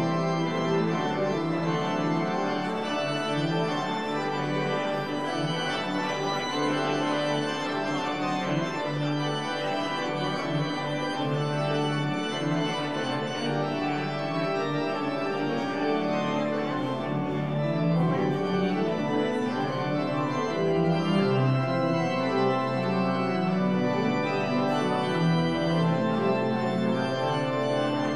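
Church organ playing music of full, held chords that change every second or so.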